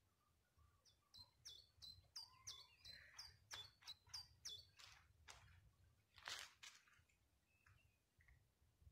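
Faint bird song: a quick run of about ten short high chirps, each dropping in pitch, then a single sharper sound about six seconds in, over a faint low rumble.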